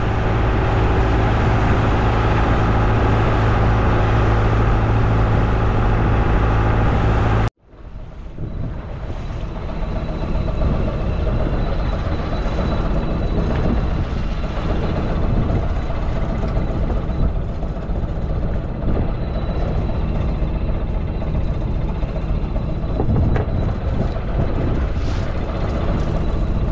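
Fishing boat's engine running steadily under way, a deep even hum, until a sudden cut about seven seconds in. After that, a rougher, uneven rushing noise of choppy sea water along the drifting boat's hull.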